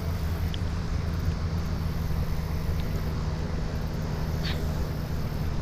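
Steady low motor hum.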